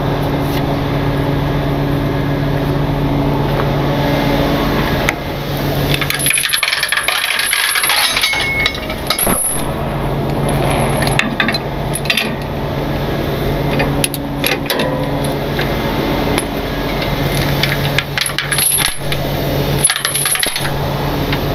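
Steel safety chains clinking and rattling as they are handled and hooked onto a tow truck's underlift and body, with a steady engine hum underneath that drops out for a couple of seconds about six seconds in.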